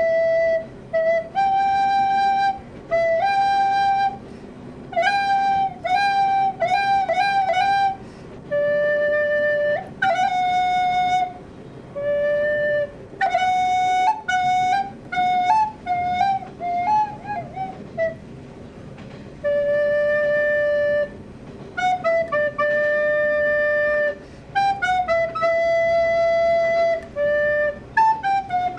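Solo recorder improvising: phrases of single clear notes, some held, some in quick runs with small bends in pitch, with short pauses between the phrases.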